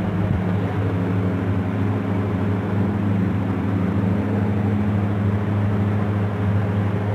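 A machine running steadily with a continuous low hum that does not change.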